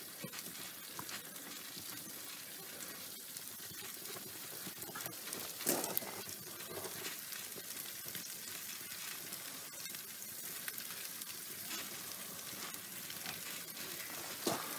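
Pizza sizzling in a wood-fired oven: a steady frying hiss from the bubbling cheese and sauce, with scattered small crackles from the burning wood and a short louder noise about six seconds in.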